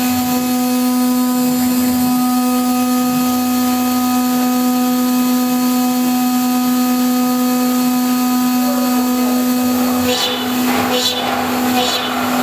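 CNC router spindle whining at a steady pitch with overtones while a small end mill cuts aluminium. From about ten seconds in, a rougher, hissing cutting noise comes in over the whine.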